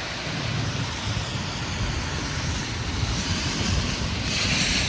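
Steady hiss and low rumble of a wet street in the rain, with the tyre hiss of a vehicle on the wet road swelling near the end.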